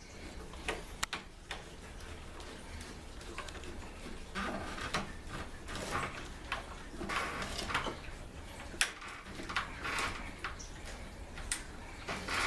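Screws being driven by hand with a Phillips screwdriver into a door knob's metal hardware: scattered sharp clicks and several short scraping turns.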